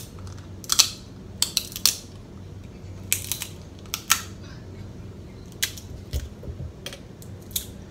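Close-up eating sounds: sharp crackling clicks as snow crab meat is bitten and chewed and the crab leg shell is pulled apart, in clusters early on that thin to single clicks, over a faint low hum.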